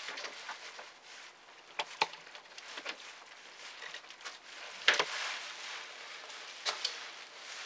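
Scattered small clicks and taps of a screwdriver and fingers working on an opened laptop's internal parts near the battery, the loudest about five seconds in.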